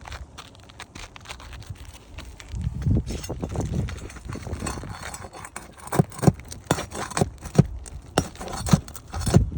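A series of sharp knocks in the second half, roughly two a second and irregularly spaced, over a low rumbling noise that starts a couple of seconds in.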